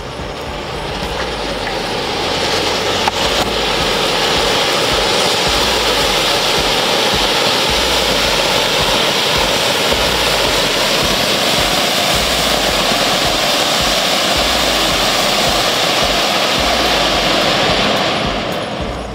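Cock Brand Rang Baraat colour flower pot, a large ground fountain firework, hissing steadily as it throws up sparks and coloured stars. It swells over the first couple of seconds and dies away near the end as the fountain burns out.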